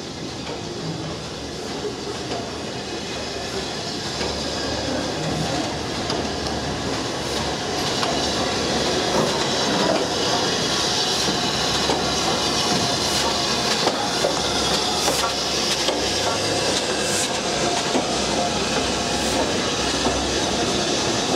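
BR Standard Class 5 steam locomotive No. 73082 'Camelot', running tender first, and its train of coaches rolling past along the platform. The sound grows louder as the train nears, with sharp clicks from the wheels as the engine goes by.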